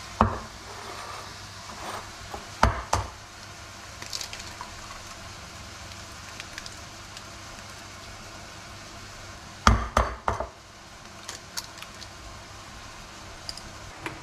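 Eggs cracked on the rim of a ceramic bowl: sharp knocks twice, about three seconds in and again about ten seconds in, after a clack as the bowl is set down at the start. Sliced mushrooms sizzle steadily in a frying pan throughout.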